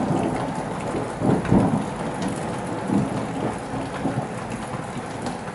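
Thunder rumbling in several low surges, loudest about a second and a half in, over steady rain.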